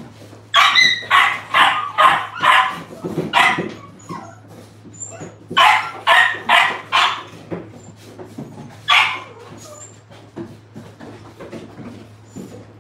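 Bulldog puppies barking and yipping in quick high-pitched runs while play-fighting over a rope toy, with pauses between the runs and a single bark about nine seconds in. A steady low hum runs underneath.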